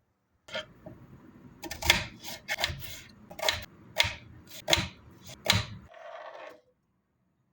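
A run of sharp knocks and clicks from hard objects being handled, about eight strikes roughly half a second apart, mixed with softer scraping.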